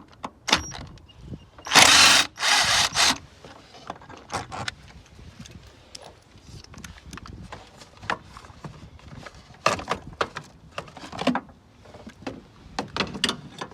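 Two short bursts of a power tool, about two seconds and three seconds in, backing out the 10mm bolt on the air filter housing, then scattered clicks and knocks of the housing and tools being handled.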